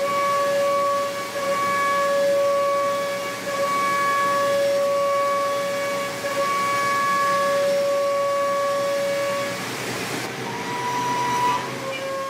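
Five-axis CNC machine milling aluminium at high speed: a steady high-pitched cutting whine over a hiss of chips and coolant. The whine cuts out about ten seconds in and returns at a slightly different pitch near the end as the tool moves to a new pass.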